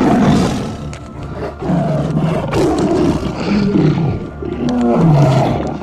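Big-cat roar and snarl sound effects: about three growling roars in a row, each dropping in pitch.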